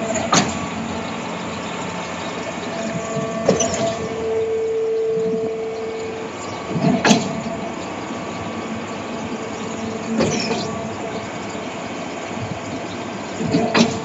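Small portable concrete pump running steadily, with a sharp clank about every three and a half seconds, five in all.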